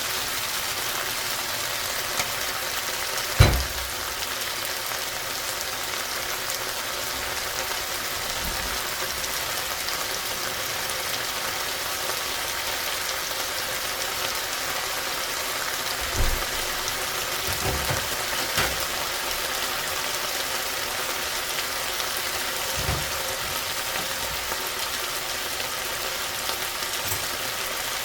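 Food sizzling steadily in a frying pan, with a few short knocks, the loudest about three seconds in.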